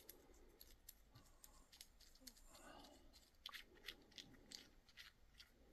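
Near silence with faint scattered clicks and ticks, a little more of them in the second half, as a brass rivet nut is threaded by hand onto a bolt with its washers and hex nut.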